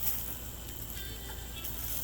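Background music over a steady low hum.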